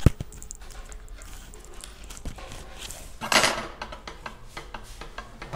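Small objects being handled by hand: a sharp click at the start, scattered light taps and clinks, and a brief rustling scrape about three and a half seconds in.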